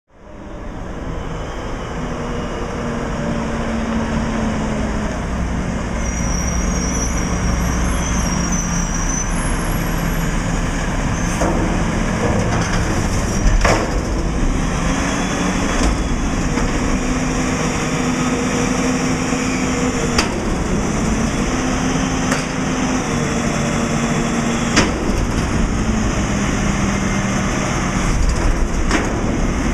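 Diesel engine of a McNeilus Contender front-end loader garbage truck running, its speed stepping up and down as it drives the hydraulics that work the forks and lift a dumpster. Several sharp metal clanks are scattered through it.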